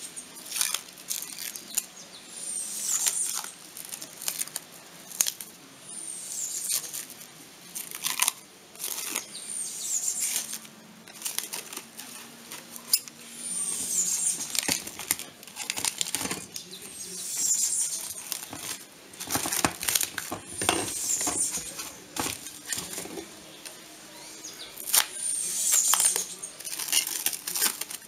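Plastic cling film being pulled off its roll and stretched around a pot and glass lid, in repeated crackling, rustling pulls with sharp clicks.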